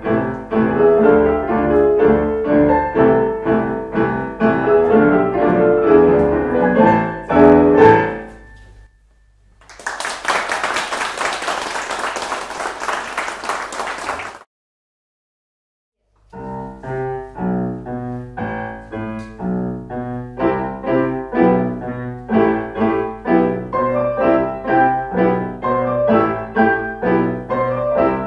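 Piano music that ends about eight seconds in, followed by about five seconds of audience applause. After a short silence, another piano piece begins and plays on.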